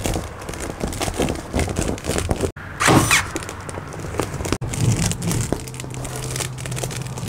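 Stiff woven lauhala (bacbac) matting rustling and crackling as it is pushed and worked into place against the ceiling, with a few sharp knocks. The loudest crackle comes about three seconds in.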